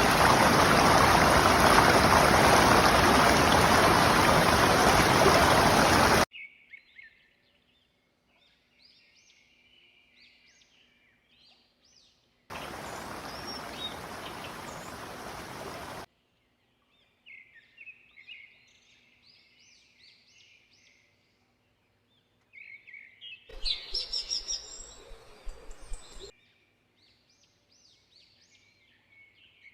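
Rushing water, loud and steady, cuts off suddenly about six seconds in. Faint songbird chirps follow in short runs, interrupted by a second, quieter stretch of rushing water and a louder spell of chirping near the end.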